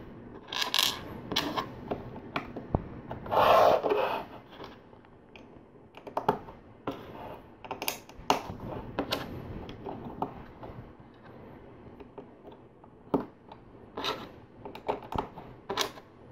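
Plastic LEGO bricks clicking and snapping together as slope pieces are pressed onto a brick column by hand, with scattered sharp clicks of pieces being picked up and set down. A brief louder rustle comes about three and a half seconds in.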